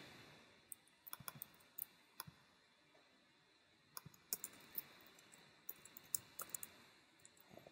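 Faint computer keyboard typing and clicking: scattered short key clicks in two runs, with a pause of about a second and a half between them.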